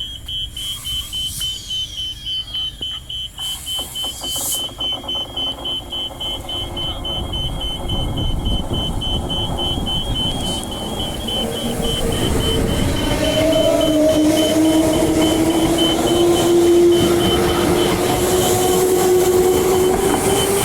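Level crossing warning bells ringing in rapid, even pulses while a Transperth electric train runs through, its rumble growing louder and its motor whine slowly rising in pitch from about eight seconds in.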